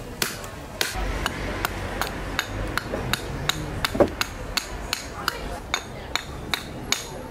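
Small carving axe chopping into a block of spalted sycamore, giving a quick, steady run of sharp wooden chops at about two to three a second. The hardest blow comes about four seconds in.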